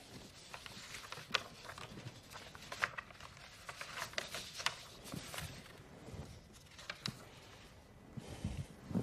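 Faint scattered clicks and light knocks over quiet room tone, a few of them sharper, at irregular moments.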